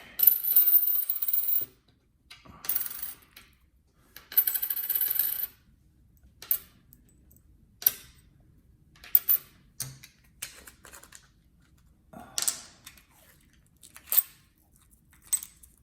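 Silver Barber coins clinking: a few stretches of coins sliding and jingling against each other in the first five seconds or so, then single coins set down one at a time, about one every second or so, as they are counted.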